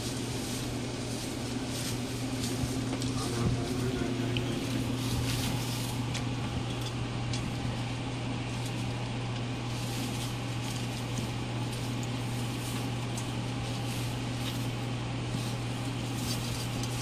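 Rottweiler puppies moving about in shredded-newspaper bedding: a continuous crackling paper rustle with many small clicks, over a steady low hum.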